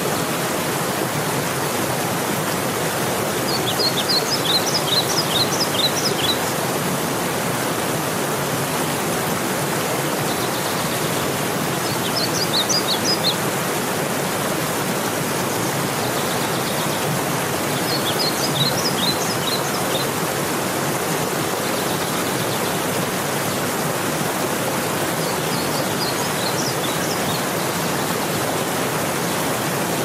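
Steady rushing of flowing river water. Over it a bird chirps in five short runs of quick high notes, one every six seconds or so.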